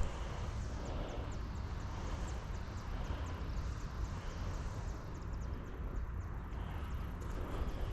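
Outdoor ambience: a steady low rumble with many faint, short high chirps scattered throughout.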